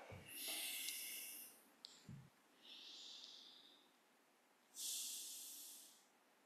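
A man's soft breaths into a close microphone: three slow breaths about two seconds apart, with near silence between them and a faint click and low thud between the first and second.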